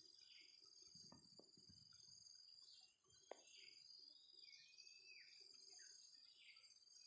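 Faint, scattered short chirps and whistled notes of a wild oriental magpie-robin, over a steady high buzz of crickets or cicadas. A single sharp click comes about three seconds in.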